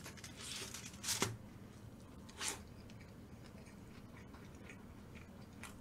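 Faint noises of eating kimchi pancake: a sharp click about a second in, then a short crisp rustle a little over a second later.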